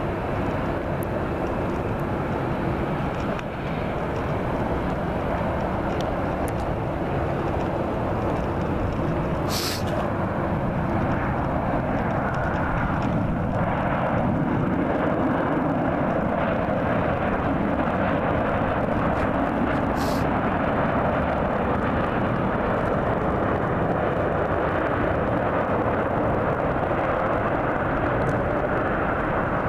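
Boeing 737-800 airliner's CFM56-7 jet engines heard during touchdown and landing rollout: a loud, steady rush of engine noise that swells a little about ten seconds in. Two brief clicks, about ten and twenty seconds in.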